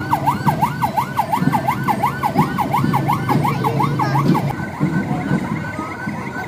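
Vehicle siren in a fast yelp, its pitch sweeping up and down about three times a second over a low rumble; about two-thirds of the way through it becomes much fainter.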